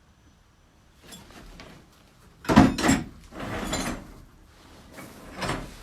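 Irregular clatter, knocks and scraping of odds and ends being rummaged through and moved about, loudest about two and a half seconds in.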